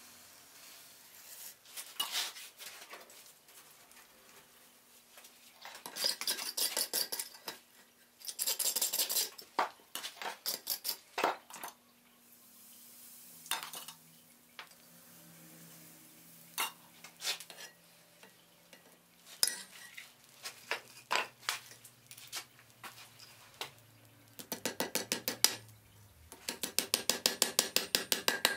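Hand hammer striking hot iron bar stock on an anvil, with ringing metallic blows. Scattered single blows alternate with runs of quick, light strikes, several a second, around 6 and 9 seconds in and again through the last four seconds.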